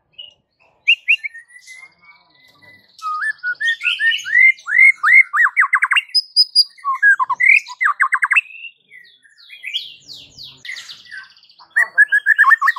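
Male white-rumped shama singing a long, varied song: clear whistled notes mixed with quick runs of rapidly repeated sweeping notes and fast chattering trills.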